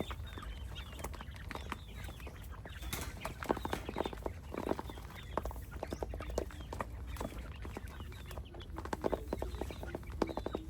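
Chickens clucking and calling, with short high wavering calls and many quick ticks and rustles throughout.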